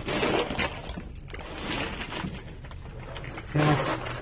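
Rustling and scraping of a person crawling over dirt and plastic sheeting in a crawl space, in uneven bursts, with a brief vocal sound near the end.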